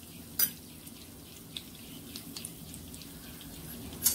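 Mustard seeds spluttering in hot oil in a clay pot: a faint steady sizzle with scattered sharp pops, the loudest about half a second in and near the end.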